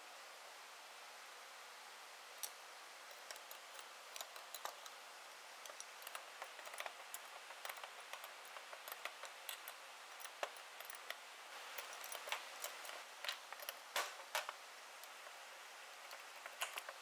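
Wrenches working on a chainsaw's metal crankcase halves: scattered, irregular metal clicks and clinks as the parts are tightened, starting a couple of seconds in and busiest near the end.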